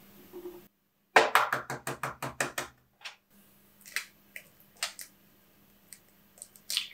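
A quick run of about a dozen sharp taps, then an egg being cracked on the rim of a mixing bowl: a few small taps and clicks of the shell, and a sharper crack near the end as it splits open.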